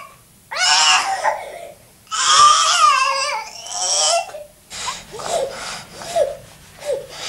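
A toddler crying: a short high wail, then a longer wailing cry, then several shorter sobbing cries.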